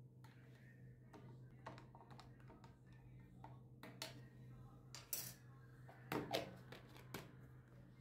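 Faint clicks and taps of a plastic baby bottle and a plastic spoon being handled as honey is spooned and stirred into the bottle, louder about five and six seconds in. A steady low hum runs underneath.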